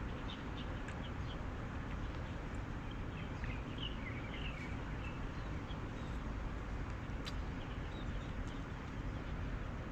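Small birds chirping in short, scattered calls, a little busier about four seconds in, over a steady low outdoor rumble.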